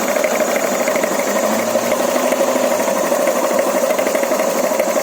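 Honda Forza MF-08 scooter's single-cylinder engine idling, with a fast, steady knock from the CVT variator. The electronically shifted Honda S-Matic front variator is not moving its sheaves.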